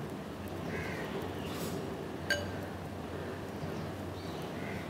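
A single bright, ringing clink about two seconds in, as the glass bowl of breadcrumbs and oats is struck while a hand coats a marinated chicken drumstick. A steady low hum runs underneath.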